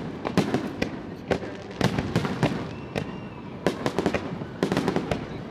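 Aerial firework shells bursting in quick succession: a dense, irregular series of bangs, several a second.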